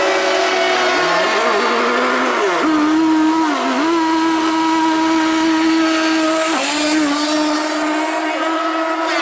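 Several radio-controlled racing boats' small two-stroke engines running at high revs, making a high-pitched whine of overlapping tones. One engine dips briefly in pitch a few times, easing off and picking up again.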